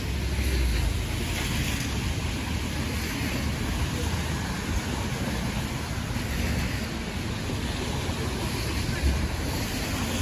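Rainy downtown street ambience: a steady wash of noise from rain and traffic on wet pavement, with wind rumbling on the microphone.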